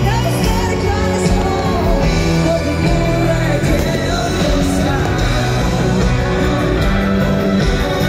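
Loud live pop-rock band music with singing.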